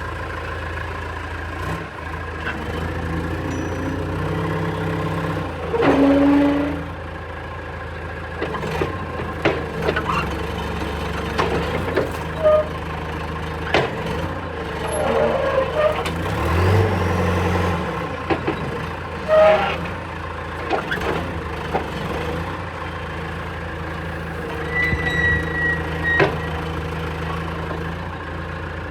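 John Deere 410G backhoe's diesel engine running steadily, with scattered metallic clanks and a few short squeaks from the machine throughout.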